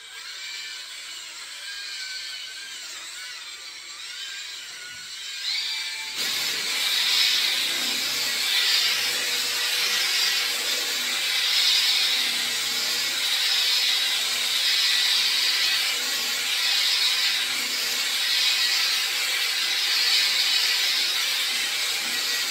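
Cordless drill spinning a polishing pad with rubbing compound against a plastic headlight lens. It runs softly for the first six seconds, then louder, swelling and fading every second or two as the pad is worked back and forth across the lens.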